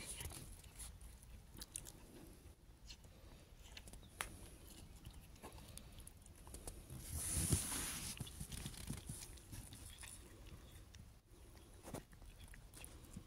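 A cat crunching and chewing pieces of freeze-dried chicken, with faint crisp crunches now and then. There is a short, louder stretch of noise about seven seconds in.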